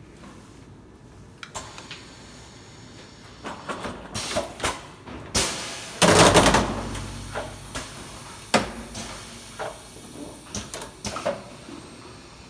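A steel-chair foot insertion machine working: a string of mechanical clacks and knocks, with one loud blast of noise about six seconds in that dies away over about a second.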